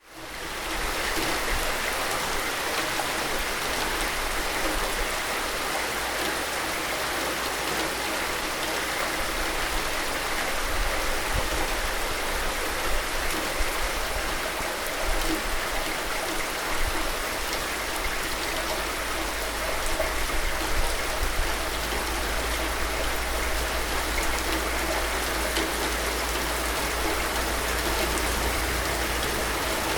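Steady, even rain hiss with a low rumble beneath it. At the very start the sound dips almost to silence and fades back up over about a second, like a loop restarting.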